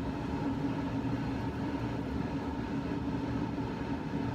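Steady fan hum with a constant drone and a clear, unchanging tone, without rise or fall.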